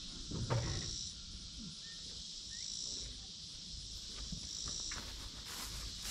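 A chorus of insects, with a high buzzing that swells into a burst about every two seconds. A dull low thump sounds about half a second in.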